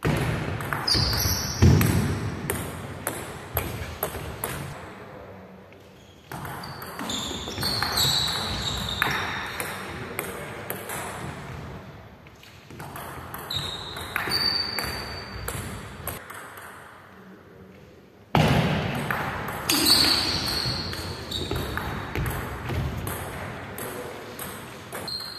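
Table tennis rallies: the celluloid ball clicking off rubber paddles and the table in quick back-and-forth strokes, echoing in a large hall. The rallies come in several runs separated by short pauses, with a few short high squeaks among the hits.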